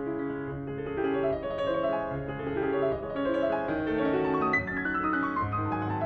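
Grand piano playing a slow solo piece of held notes, with a run of notes stepping downward about four seconds in.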